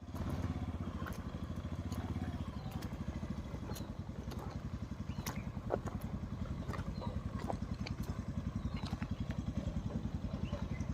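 Motorcycle engine running steadily at low revs, with scattered clicks and rattles over it.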